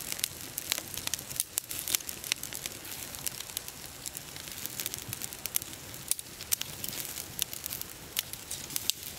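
Open wood fire crackling under a whole fish roasting on a bamboo rack, with many irregular sharp pops and snaps.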